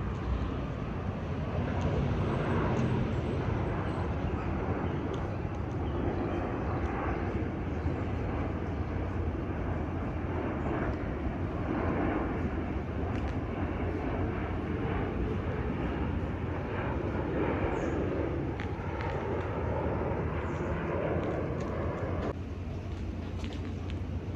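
Jet airliner flying past on its landing approach, with a steady rushing engine noise. The higher part of the sound cuts off suddenly near the end.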